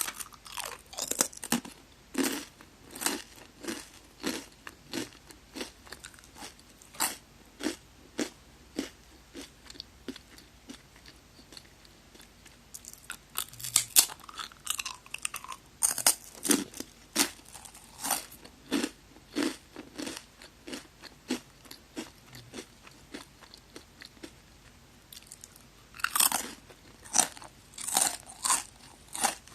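Close-miked crunching and chewing of magari senbei, a crisp curved Japanese rice cracker. Sharp crunches come about twice a second, with louder clusters of fresh bites at the start, about halfway through and near the end.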